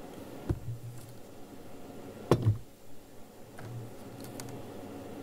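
Bench handling while a wire is soldered onto a printed graphene-ink track: a sharp knock about half a second in, a louder one a little over two seconds in, and a few fainter ticks as the wire and tools are handled against the work surface.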